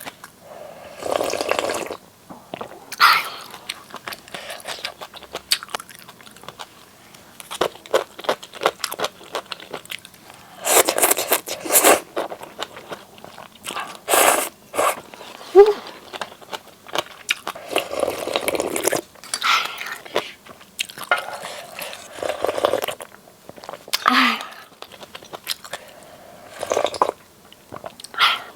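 Close-miked eating sounds: chewing and biting, with repeated second-long slurps of spicy seaweed-soup ramen noodles and broth, and light clicks of utensils between them.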